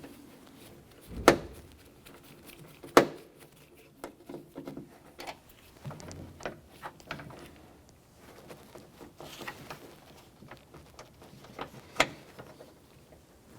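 Hand work with a screwdriver on a car door's lock button: a Phillips screw being removed, with sharp clicks and taps of tool, screw and plastic parts. Three clicks stand out, about a second in, three seconds in and near the end, with quieter fiddling between.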